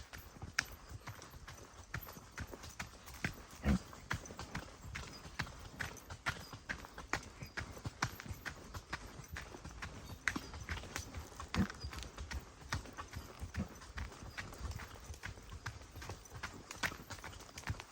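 Footfalls along a forest track: an uneven run of short clicks and crunches, a few a second.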